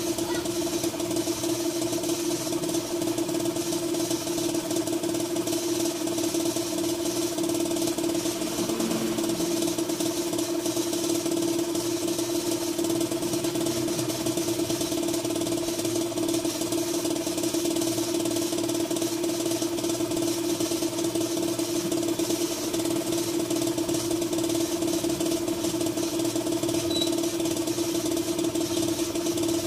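A machine running steadily off-camera, a constant even hum that holds one pitch without change.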